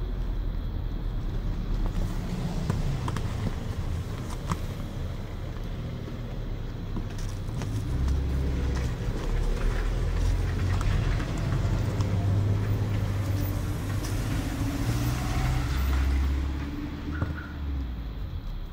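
Low rumble of a motor vehicle passing nearby: it swells about halfway through and fades near the end, with scattered small rustles and clicks on top.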